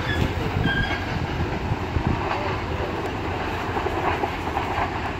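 Train running past on the track, its wheels clattering over the rail joints with a steady rumble and a brief faint high squeal about a second in.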